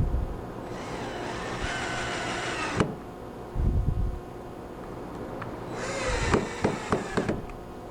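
Power drill driving screws in two runs of about two seconds each, its motor whining steadily, with a low thump between them.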